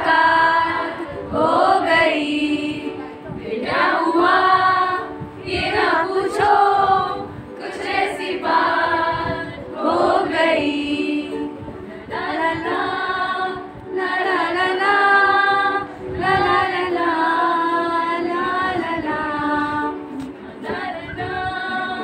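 A group of female voices singing a song together, in sung phrases of a couple of seconds each with short breaths between them.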